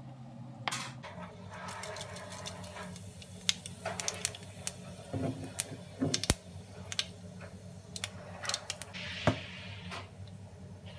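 Fennel seeds crackling in hot oil in a nonstick frying pan: scattered sharp pops and clicks, a couple of them louder, with brief bursts of sizzle, over a low steady hum.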